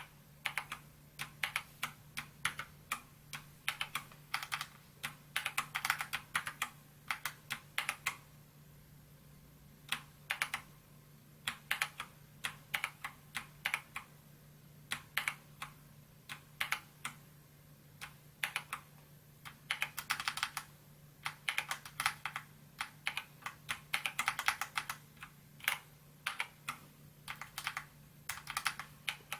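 Typing on a SKYDIGITAL NKEY-R3 mechanical keyboard with PBT keycaps: quick runs of key clicks, stopping briefly a few times, over a faint steady hum.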